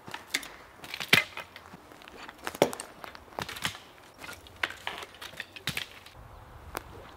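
Footsteps crunching over dry twigs and pine needles, a series of irregular sharp snaps and crunches.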